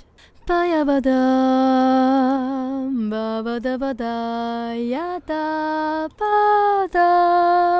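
A solo voice singing long, steadily held notes, unaccompanied, with short breaks between notes. It is a vocal passage being run through an automatic vocal-level plugin.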